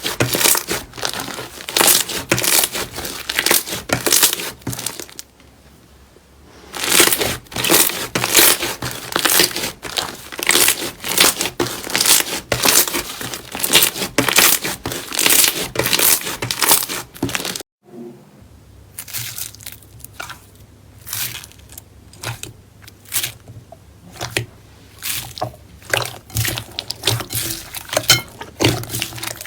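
Slime being squeezed and pressed by hand, giving dense crackling and popping clicks. After a brief pause about five seconds in, the crackling starts again. It breaks off just past halfway, then comes back sparser and quieter with separate pops.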